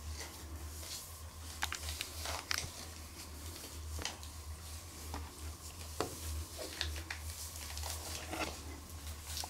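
Cotton de Tulear puppies moving about in newspaper and bedding: scattered rustles, crinkles and light taps, over a steady low hum.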